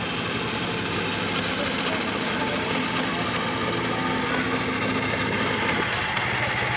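Recorded engine sound of a real Tiger I tank, played back through the MP3 sound unit of a 1:16 Heng Long Tiger I RC tank as its engine effect, running steadily. Its note shifts slightly about six seconds in.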